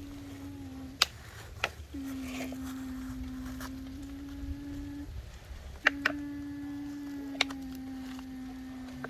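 Motor of a radio-controlled model excavator humming at a steady pitch, stopping briefly twice and starting again as the machine works, with a few sharp plastic or metal clicks and knocks from the model moving.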